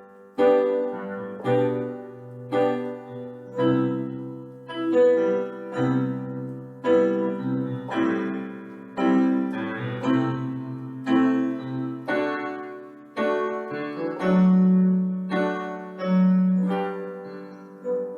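Piano playing a chord progression in G major (G, E minor, C, A minor, D) with a moving bass line in the left hand: right-hand chords struck about once a second over held bass notes that step between chord tones.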